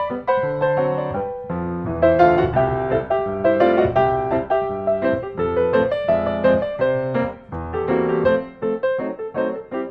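Background piano music: a steady melody of struck notes over chords.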